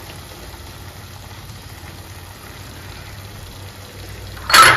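Steady low hiss and hum of the gongura chicken curry simmering in a pan on a gas stove, then a sudden short loud clatter near the end.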